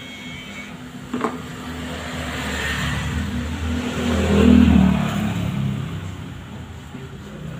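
A motor vehicle passing by, growing louder to a peak a little past the middle and then fading away. A sharp click comes about a second in.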